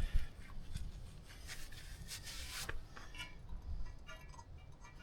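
Low handling and rubbing noises of work on a hydraulic pump's pulley after penetrating oil is applied, with one short hiss of spray a little after two seconds in.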